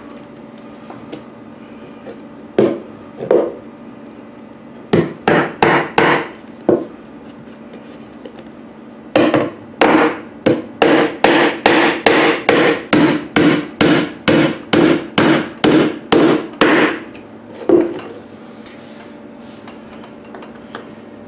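Hammer driving nails into a wooden antenna base: a couple of light taps, a short flurry of blows, then a long steady run of strikes at about two to three a second and a last single blow.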